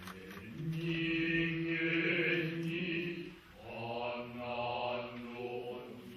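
Kita-school Noh chant (utai) sung by the jiutai chorus of male voices accompanying a shimai dance, with no instruments. A long held note for the first three seconds or so, a brief dip about three and a half seconds in, then a new phrase on a wavering pitch.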